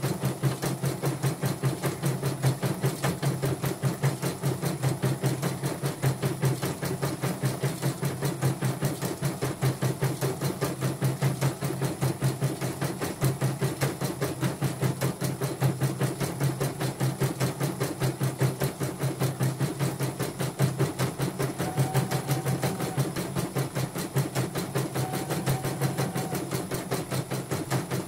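A CNY portable embroidery machine stitching a test design, its needle bar pounding out a rapid, steady rhythm of strokes. The test runs with the casing off and comes after repair of the machine.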